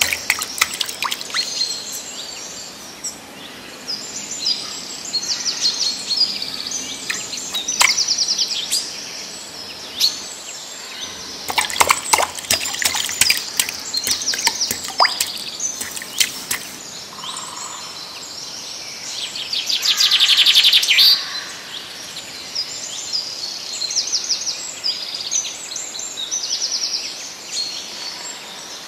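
Birds chirping and singing in high, rapid trills throughout, with one louder buzzy trill about two-thirds of the way through. Clusters of sharp clicks and knocks come at the start and again through the middle, from a hand working in a muddy, water-filled hole.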